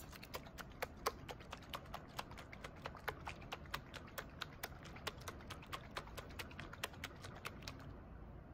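Small lidded glass jar of water and syrup shaken hard by hand: a rapid, regular run of light knocks and clicks, about five a second, that stops near the end.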